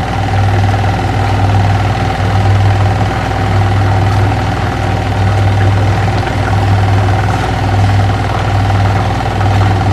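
Steady machine hum: a low drone with a constant higher tone above it, unchanging throughout.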